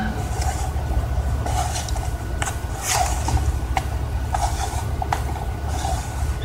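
Short plastic clicks and scrapes, about one every half second to second, as the side-cover tightening knob of a Worx WG305.1 electric chainsaw is turned down by hand. A steady low rumble runs underneath.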